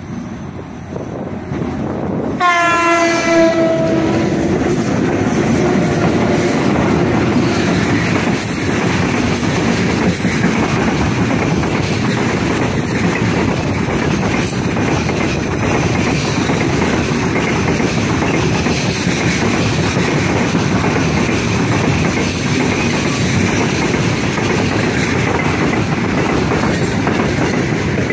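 2ES5K "Ermak" electric locomotive's horn sounded as a greeting, one short blast about two seconds in with its pitch sliding down as the locomotives pass. Then a long, heavy freight train of open gondola wagons rolls by close up, with a steady rumble and wheels clattering over the rails.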